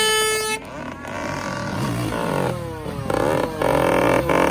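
A horn blast cuts off about half a second in, followed by enduro motorcycle engines revving, their pitch repeatedly rising and falling. The engines grow louder in the second half.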